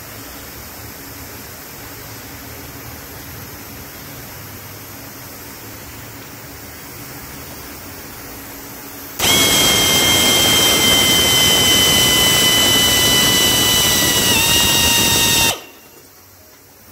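A steady air hiss, then about nine seconds in a pneumatic air-motor drill starts with a loud rush of exhaust air and a high whine while drilling a wooden block. The whine sags and steps lower near the end, and the drill cuts off suddenly after about six seconds.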